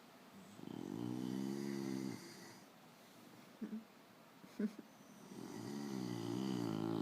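Sleeping bully-breed dog snoring: two long, pitched snores about five seconds apart, with two brief short noises in the pause between them.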